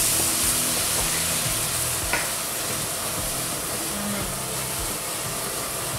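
Ground curry spice paste sizzling in oil in a frying pan as it is sautéed and stirred with a wooden spatula. The steady frying hiss eases a little over the first couple of seconds, with one light tick about two seconds in.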